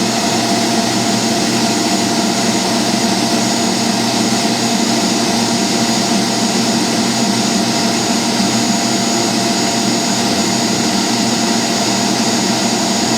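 Electric stand mixer running steadily at a high speed setting, a constant motor hum and gear whine with a thin high-pitched tone over it.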